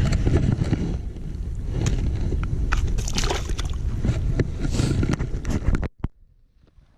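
Wind buffeting the microphone, with rustling and scattered handling knocks, cutting off suddenly near the end.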